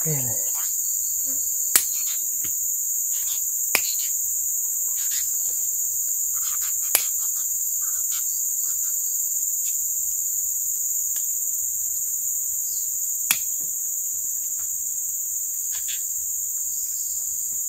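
Steady high-pitched buzzing chorus of insects, with four sharp clicks about 2, 4, 7 and 13 seconds in.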